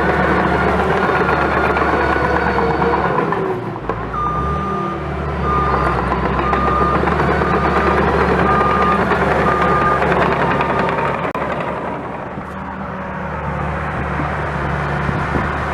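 Diesel engine of a John Deere 650H bulldozer running under load. About four seconds in, the engine note drops and a backup alarm starts beeping about once a second for some seven seconds as the machine reverses.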